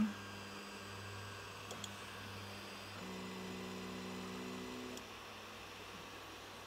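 Winice M09 3D printer's stepper motors whining steadily as the machine moves its print head and bed to a corner for bed leveling, changing pitch about three seconds in and stopping about five seconds in. A low steady hum runs underneath.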